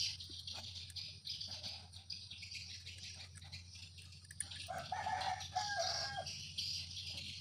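A rooster crowing, heard about five seconds in as a call in two parts, over a steady high hiss and a low hum, with faint clicks of metal parts being handled.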